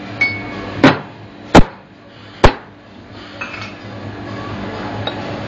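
Three sharp knocks, a little under a second apart, of a stainless steel milk pitcher rapped on the counter to settle freshly steamed milk before pouring.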